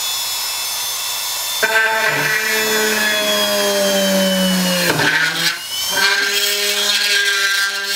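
Small handheld rotary tool drilling through the plastic back case of an RC transmitter: a loud, steady motor whine. It drops in pitch as the bit bites in about one and a half seconds in, sags further under load, falters briefly about five seconds in, then picks up again.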